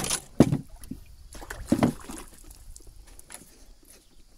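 Several sharp knocks and thumps, the loudest in the first two seconds, with fainter ones after, most likely gear or fish being handled in a small boat.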